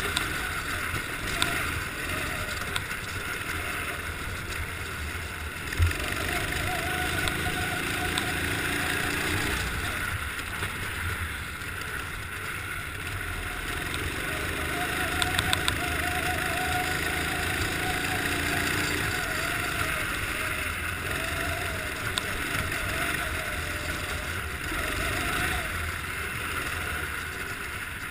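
Go-kart engine heard from an onboard camera, its pitch rising and falling in long sweeps as the throttle opens and closes through the corners, under a steady hiss. A single sharp knock about six seconds in.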